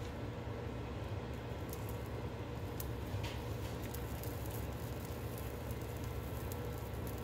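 Shredded cheese sprinkled by hand into a pan of egg and tortilla chips, with faint light patters and a few soft ticks over a steady low hum.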